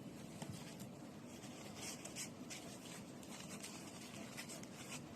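Faint rustling and scratching of paper packaging being handled, with a few soft scratchy rustles about two seconds in.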